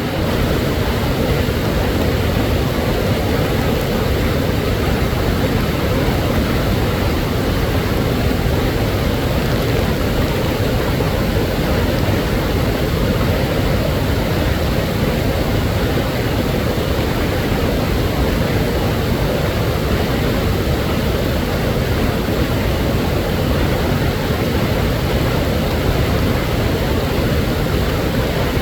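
Waterfall: a steady, unbroken rush of falling water, deep in tone, with no changes or separate splashes.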